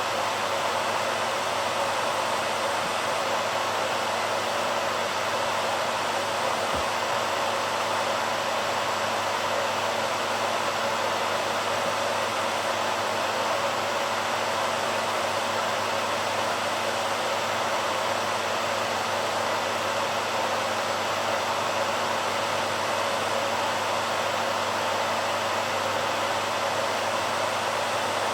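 BaByliss hairdryer running steadily, its fan and airflow making an even, unchanging rush of noise.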